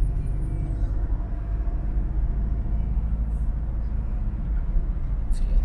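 Steady low rumble of a moving vehicle: engine and road noise heard from on board an open-topped vehicle.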